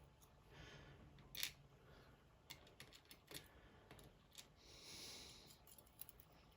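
Faint, sharp clicks and taps of small metal lock parts and tools being handled while an Assa Desmo cam lock is taken apart, the loudest about a second and a half in, with a brief soft hiss near the end.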